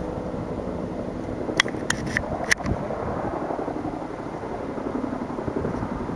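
A steady low engine drone of a distant helicopter under a wash of outdoor rumble, with a few sharp clicks close together around two seconds in.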